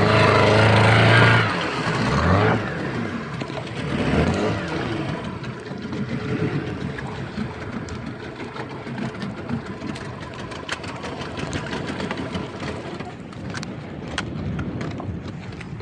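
Fishing boat's engine running with a steady low hum, which falls away about one and a half seconds in. Then come water sloshing along the hull and scattered clicks and knocks as the net with its floats and catch is hauled aboard.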